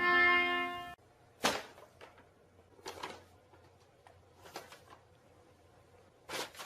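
A held tone with several pitches that cuts off abruptly about a second in, followed by four short, faint knocks spaced over the next few seconds.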